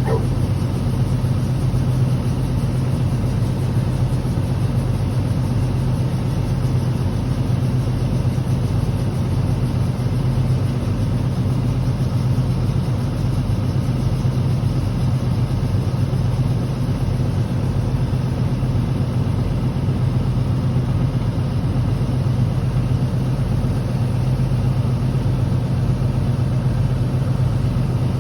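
John Deere 4440 tractor's six-cylinder diesel engine running at a steady speed: a constant low drone with no change in pitch or level.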